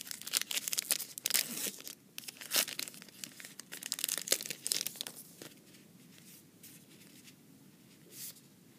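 Wrapper of a trading card pack being torn open and crinkled, a busy run of rustling and crackling for about the first five seconds, then quieter with one more short rustle near the end.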